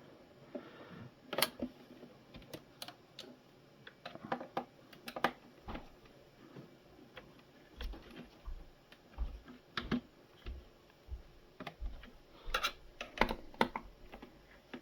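Screwdriver clicking and tapping as screws are backed out of a coffee machine's plastic housing, with irregular sharp clicks and a few low knocks from the machine being handled.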